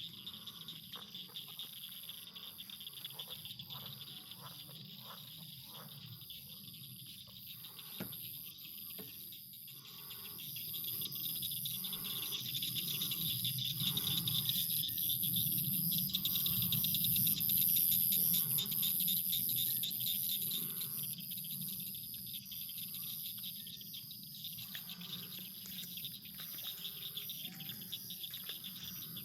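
A chorus of crickets and other insects trilling steadily in two high pitches, swelling louder in the middle, with a lower call repeating about once a second underneath.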